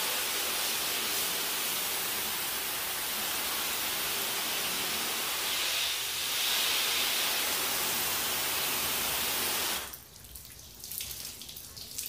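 Water spray hitting a car hood: a steady, even hiss that cuts off suddenly about ten seconds in, followed by faint dripping.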